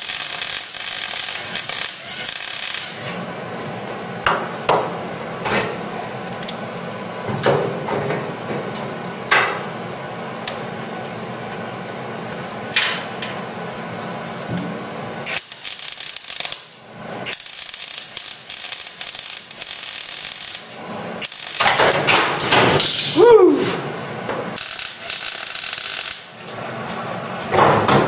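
MIG welder arcing on car body steel in several short bursts of crackling hiss, the first lasting about three seconds and the others coming back later with gaps between. Between the bursts there are single sharp knocks and clatter.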